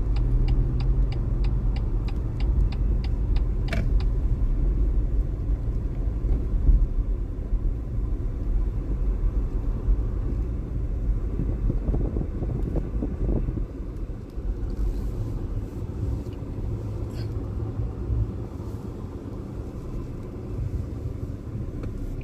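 A car running, with a steady low rumble of engine and road noise. A quick, even ticking, about three a second, sounds over the first four seconds and then stops.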